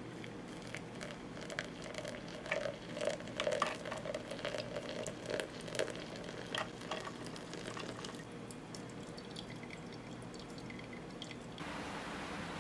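Hot water trickles from a kettle through a drip-bag coffee filter into a glass pitcher packed with ice, with many small sharp crackles and drips as the hot coffee hits the ice. It changes to a steady even hiss about a second before the end.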